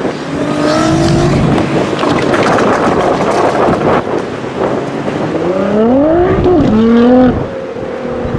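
Tuned Nissan GT-R R35's twin-turbo V6 accelerating hard. After a few seconds of loud, rough engine noise, the engine note climbs steeply, dips once at a gear change and climbs again, then cuts off suddenly near the end.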